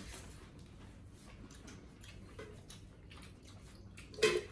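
Quiet eating sounds: soft irregular clicks and smacks from chewing and from fingers mixing rice on plates, with one brief louder sound near the end.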